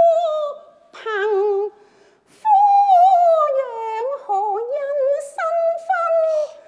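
Cantonese opera singing: a high voice sustaining long, wavering notes with vibrato, in several phrases broken by short pauses.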